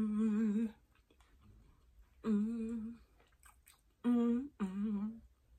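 A woman humming "mmm" with her mouth closed while eating: four short, wavering hums of enjoyment, the last two close together near the end.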